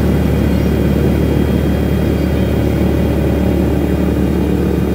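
Helicopter cabin noise in flight: a loud, steady engine and rotor drone.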